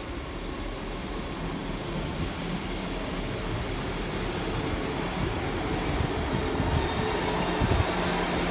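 Class 158 diesel multiple unit train pulling into the platform, its rumble growing louder as it nears, with a brief high squeal about six seconds in.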